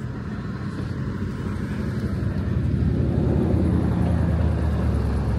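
A car engine running with a low, steady sound that grows louder from about halfway in.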